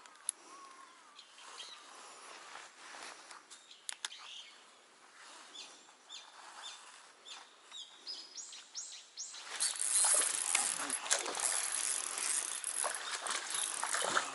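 A small hooked black bass thrashing and splashing at the water's surface, starting about two-thirds of the way in and much louder than the faint clicks and chirps before it.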